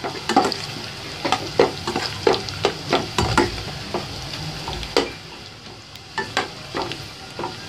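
Sliced onions sizzling in hot oil in a stainless steel pot, stirred with a utensil that scrapes and knocks against the pot in irregular clicks. The onions are just starting to turn pink.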